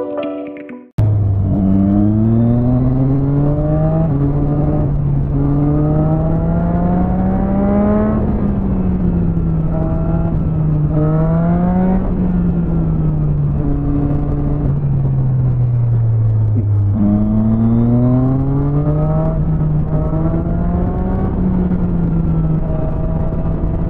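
Motorcycle engine heard from the rider's position, accelerating through the gears: the pitch climbs and drops back at each upshift, sinks as the bike slows around the middle, then climbs again and holds steady near the end.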